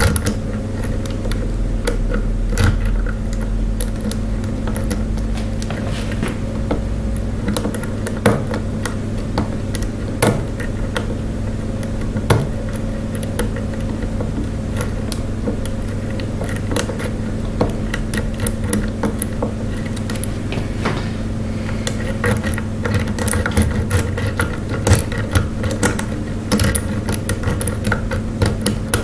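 Lock pick and tension wrench single-pin picking a brass ERA padlock: small irregular clicks and scrapes of the pick on the pins, coming more often in the last several seconds. They sit over a steady low mechanical hum.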